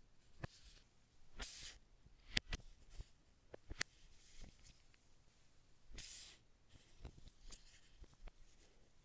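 Faint handling noises: scattered light taps and clicks with a few short rustling swishes, as of hands moving packaging or the device.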